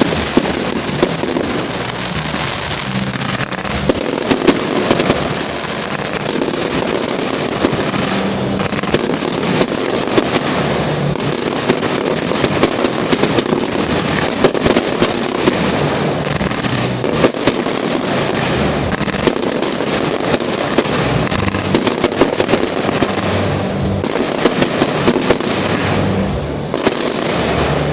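Fireworks display in full swing: a dense, continuous crackle of bursting shells, with many sharp bangs.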